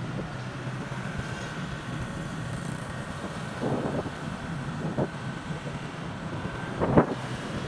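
Steady engine and road noise of a moving vehicle heard from on board, with a few short sharp sounds, the loudest about seven seconds in.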